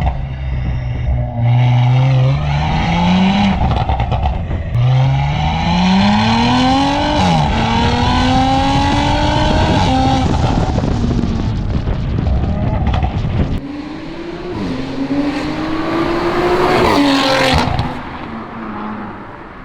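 Audi RS5's twin-turbo V6 (B9.5) through a titanium full-system exhaust, on a stage 2 tune, accelerating hard: its pitch climbs and drops sharply several times as it shifts up through the gears. Near the end a loud, sharp burst comes as it lets off, then it settles to a lower, quieter run.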